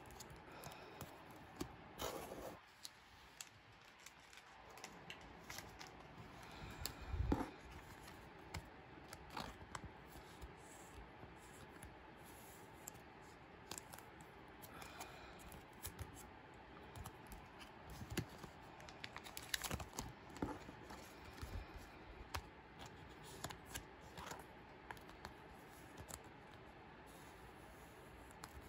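Crinkling and rustling of clear plastic card sleeves as photocards are handled and slid into them, with scattered light clicks and taps. A louder thump comes about seven seconds in.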